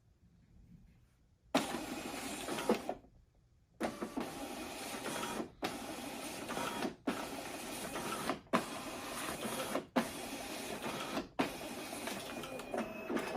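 Fujitsu fi-5530C2 document scanner feeding a stack of pages through its automatic feeder. It starts about a second and a half in, then runs as a steady mechanical whir broken by a short gap and a click at each new sheet, roughly one page every second and a half, about seven pages in all.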